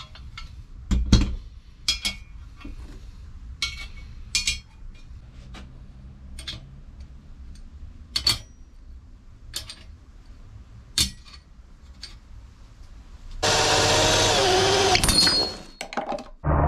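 Metal parts being handled, giving scattered clinks and taps with a short ring. Near the end a power tool runs loudly for about two and a half seconds, its pitch wavering.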